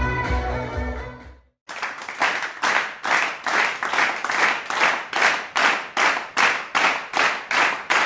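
Live rock music that fades out within the first second and a half. After a short gap, hands clap in a steady, even rhythm, about two and a half claps a second.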